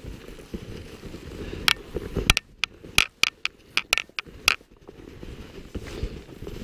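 Snowshoe footsteps crunching and shuffling through fresh powder snow, with a quick run of sharp clicks and snaps from about two to four and a half seconds in.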